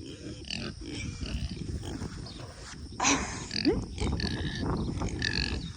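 Pigs grunting at close range, low and irregular, with rustling around them.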